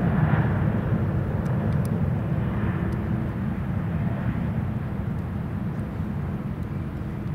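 Boeing 747's four turbofan engines droning steadily on final approach with the landing gear down, a low rumble that slowly grows fainter.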